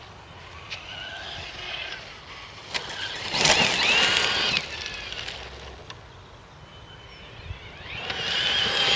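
Tenshock X812L electric motor of a Losi 8ight RC car whining as the car runs on the dirt track, its pitch rising and falling with throttle. It is loudest about three and a half to four and a half seconds in, as the car comes close, and quieter in between.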